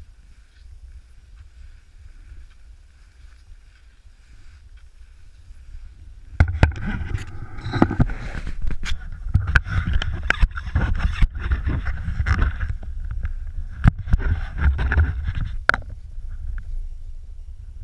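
Cross-country skiing: skis swishing over snow and poles planting, heard through a pole-mounted camera's microphone. The sound is quiet at first, then from about six seconds in becomes much louder with clicks and knocks, wind rumble and handling noise from the swinging camera pole, and eases off near the end.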